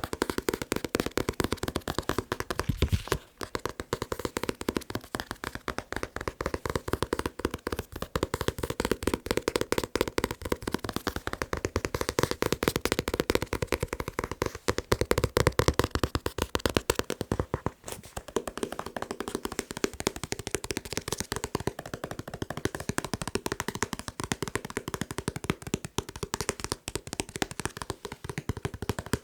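Fingers tapping fast on manga books: a dense, rapid run of taps, many a second, with brief breaks about 3 seconds in and again near 18 seconds.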